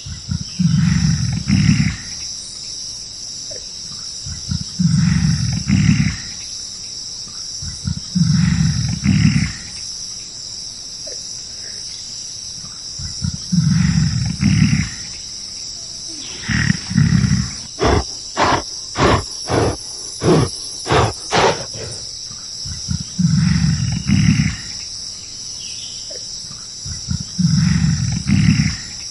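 Gorilla calling in low roars of a second or two, repeated about every four seconds, with a quick run of about eight short, sharp pulses in the middle. A steady chorus of insects sounds high and constant underneath.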